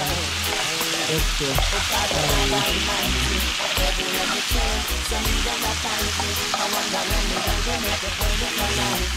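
Chopped vegetables sizzling steadily in a hot cast-iron skillet over a wood fire, stirred with a spoon, with background music and a bass beat underneath.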